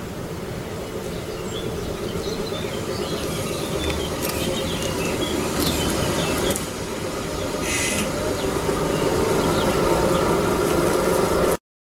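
Class 810 'Motorák' diesel railbus approaching at low speed, its engine running steadily and growing louder as it nears, with birds chirping. A brief hiss about eight seconds in, and the sound cuts off abruptly just before the end.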